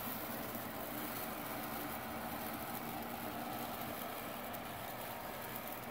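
iLife A4s robot vacuum running at max suction: a steady motor and fan hum with a faint steady whine.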